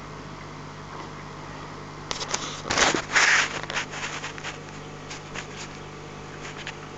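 A steady low electrical hum. About two seconds in, a burst of scraping and crackling noise comes in, and scattered clicks follow.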